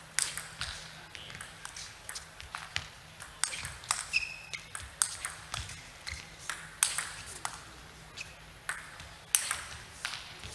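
Table tennis rally: the celluloid ball clicking sharply off bats and table in a long exchange between a defensive chopper and an attacker, with a few short squeaks of shoes on the court floor.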